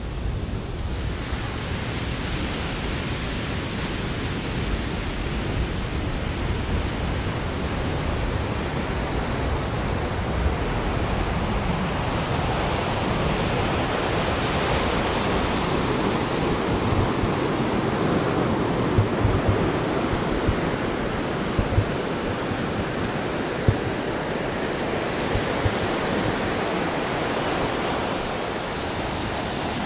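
Ocean surf washing onto the beach: a steady rushing noise that swells a little about halfway through, with a few faint pops in the second half.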